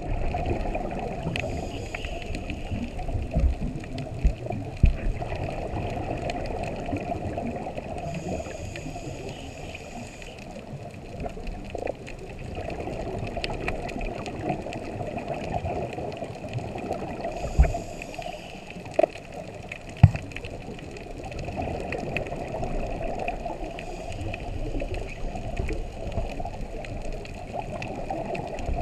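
Scuba diver breathing through a regulator, heard underwater: long bubbling exhalations alternating with short hissing inhalations. A few sharp knocks stand out.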